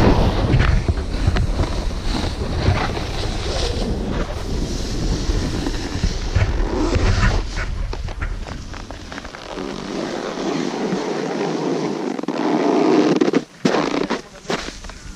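Wind buffeting a helmet-level action camera's microphone while a snowboard slides and scrapes over hard-packed snow on a downhill run. The wind rumble dies away after about nine seconds, leaving the rough hiss of the board on the snow, with a few sharp knocks near the end.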